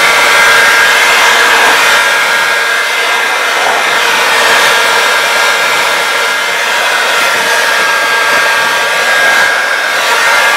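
Electric heat gun running steadily, its fan blowing with a steady high whine, held close to a propeller to re-melt the waxy Prop Shield antifouling coating so it can be brushed out.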